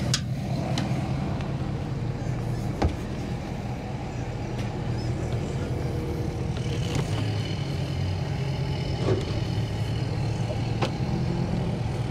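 Yamaha 250 SHO V6 four-stroke outboard idling steadily while the boat is backed off its trailer into the water. A couple of light knocks sound, one about three seconds in and one near the end.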